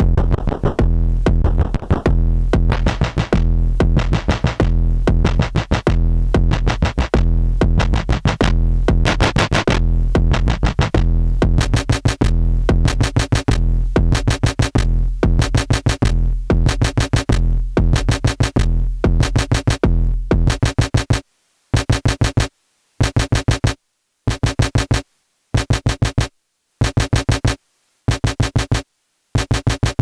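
WMD Kraken eurorack synthesizer module playing rapid clocked, pitched pulses, uncompressed, with a heavy low end at first. About twenty seconds in it breaks into short bursts separated by gaps of silence.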